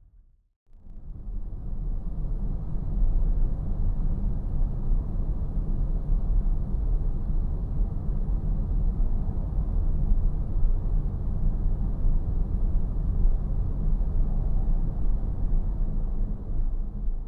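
Steady low rumble of outdoor street ambience, heaviest in the bass, with no distinct events. It drops out briefly about half a second in and fades back up over the next second or two.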